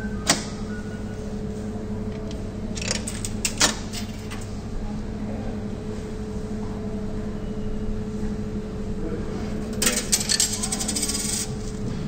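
Coins dropping into a metro ticket vending machine, a sharp clink just after the start and a quick run of clinks about three to four seconds in, over a steady machine hum. A dense rattling burst of about a second and a half comes near the end.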